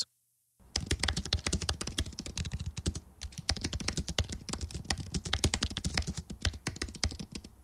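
Fast typing on a computer keyboard: a dense run of keystrokes that starts about half a second in, with a brief pause around the middle.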